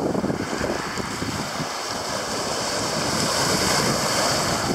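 Small waves washing onto a shallow beach, with wind buffeting the microphone. The hiss of the wash swells about three seconds in.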